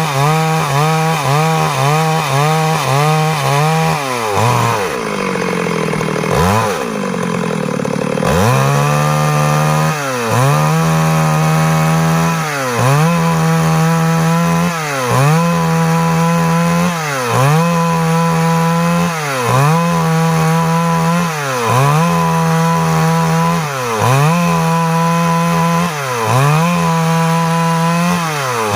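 Stihl MS 382 two-stroke chainsaw cutting wood at high revs. About four seconds in, the engine drops to a low note and revs back up. From there its note dips briefly about every two seconds.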